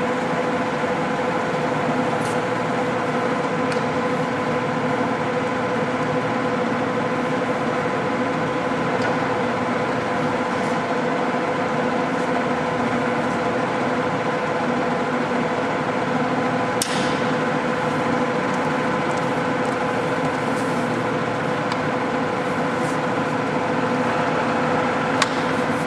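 American Pacemaker engine lathe running under power, its geared headstock and 10 hp drive giving a steady hum and gear whine. A sharp click sounds about 17 seconds in and another near the end.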